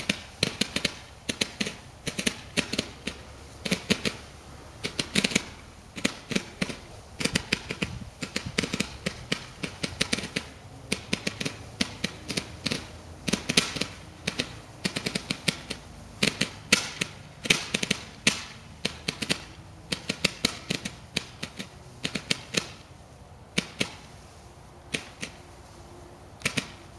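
Small fireworks firing a long irregular series of sharp pops, several a second, as stars are launched one after another. The pops thin out near the end.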